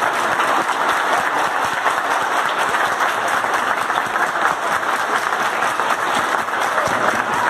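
A group of people clapping: dense, steady applause that holds at the same level with no break.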